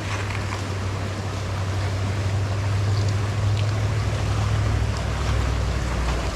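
Creek water rushing steadily, with a low steady rumble underneath that swells in the middle.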